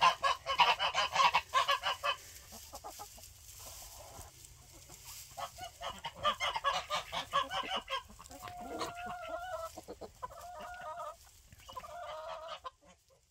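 A flock of geese honking in bursts of rapid calls, with a few longer held honks, and chickens clucking among them. The calling stops suddenly just before the end.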